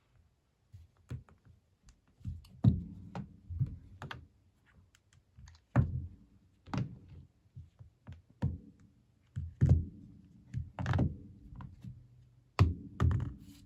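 Irregular taps and clicks with heavier thunks every second or two, several of them followed by a short low ringing.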